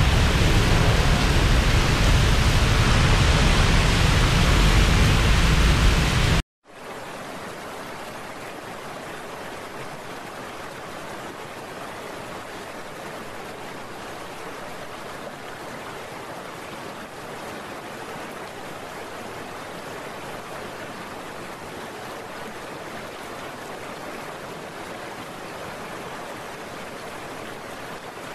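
Steady rush of heavy rain, loud and with a deep rumble underneath. About six and a half seconds in it cuts off abruptly, then goes on as a quieter, even hiss of rain.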